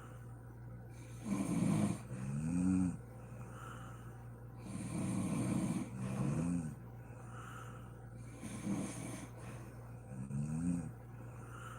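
A sleeping woman snoring: three breaths about four seconds apart, each a rough rasping snore followed by a short pitched groan that rises and falls. A steady low hum runs underneath.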